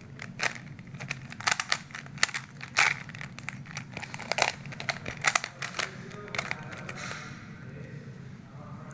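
Plastic Rubik's cube being turned by hand: quick, irregular clicks and clacks as its layers are rotated.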